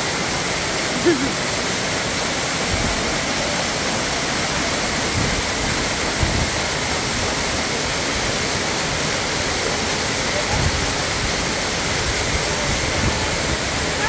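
A waterfall pouring onto rocks at close range: a steady, unbroken rush of falling water.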